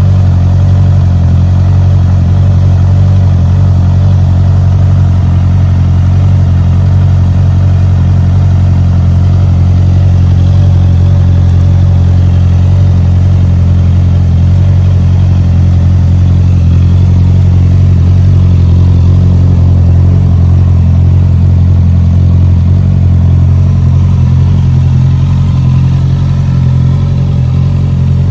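Honda CBR650R's inline-four engine idling steadily through an Akrapovic aftermarket exhaust, a loud, deep, even note with no revving.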